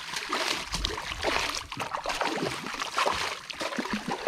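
Water splashing and sloshing around a fishing kayak, in irregular gurgles and splashes.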